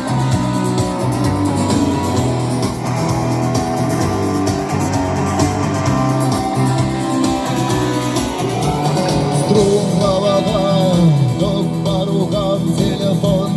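Instrumental intro of a rock song: guitars over bass and a regular beat, with a wavering melody line coming in about ten seconds in.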